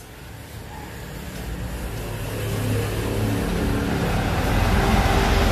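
Engine noise of a passing road vehicle, a low rumble that grows steadily louder over a few seconds.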